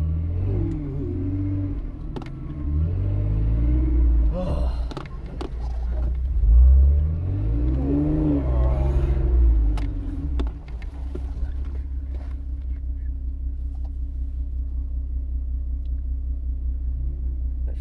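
Off-road vehicle engine revving up and down repeatedly while driving in sand, then settling to a steady low run about ten seconds in.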